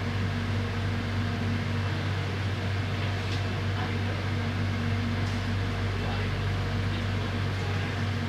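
Steady low hum inside an electric airport train's carriage, its motors and air conditioning running.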